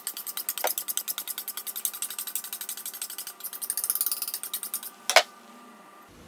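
A steel knife blade drawn rapidly back and forth on a smooth honing steel, a quick even run of metallic scrapes, to finish an edge fresh from the fine stone. About five seconds in there is a single sharp clink and the strokes stop.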